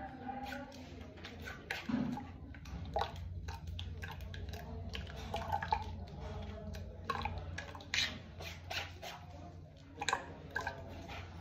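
Almond water being strained through a plastic strainer into a stainless-steel saucepan: a spoon scraping and clinking in the strainer, with liquid dripping and trickling into the pan. Scattered short clicks and knocks sit over a steady low hum.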